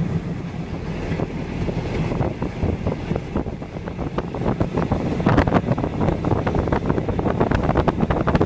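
A vehicle's engine drones steadily under wind rushing over the microphone. From about five seconds in, the wind comes in rougher, irregular gusts.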